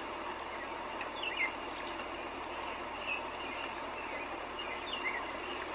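A few short bird chirps, about three in all, over a steady background hiss.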